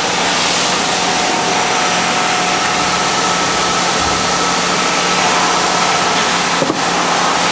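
Steady machine-shop background noise: a constant loud hiss-like hum from running machinery, with a few faint steady tones, and one light knock near the end.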